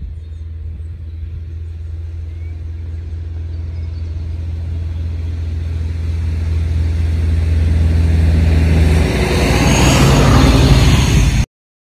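Electric scooter approaching along a tarmac lane and passing close to the microphone, its tyre and motor noise growing louder to a peak near the end, over a steady low rumble. The sound cuts off suddenly just before the end.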